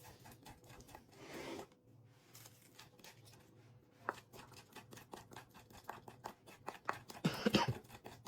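Wooden pestle working in a clay grinding bowl to grind pepper, making a string of quick, irregular clicks and scrapes. A brief louder burst comes near the end.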